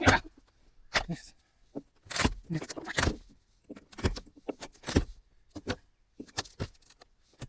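Wooden cabin siding being pried and knocked loose by hand: a run of irregular knocks, cracks and clatters, roughly one a second.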